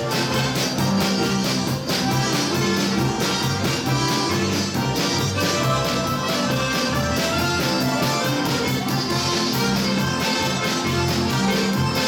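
Live polka band led by accordions playing a lively tune with a steady beat.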